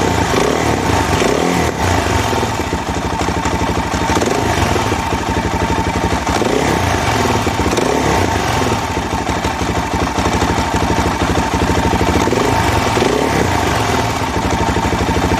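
A 2002 Suzuki DR-Z400's single-cylinder four-stroke engine running, its revs rising and falling a little. The engine has finger-tight starter clutch bolts that the owner blames for a nasty knocking clunk from the bottom end.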